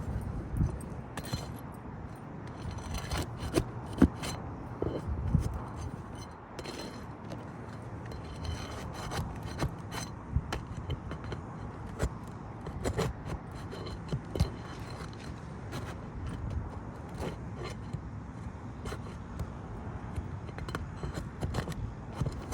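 Steel flat bar scraping and prying under asphalt roof shingles to lift them and work out the nails, with irregular clicks and knocks of metal on the shingles and nails.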